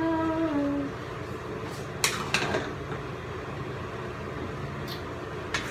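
A metal utensil clinks and scrapes against a cooking pot a few times as noodles are tossed in it, over a steady low background hum. A sung note trails off about a second in.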